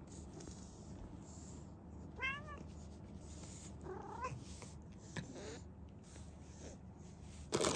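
Domestic cat giving a few short meows, roughly a second or two apart, the last one faint. A brief, louder burst of noise comes near the end.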